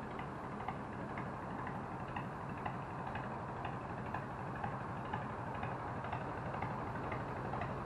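A steady low mechanical hum with a light, regular ticking about twice a second.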